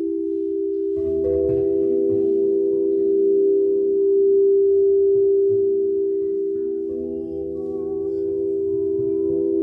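Quartz crystal singing bowls ringing together in steady, overlapping pure tones. Another bowl comes in about a second in and another around seven seconds in, adding higher notes.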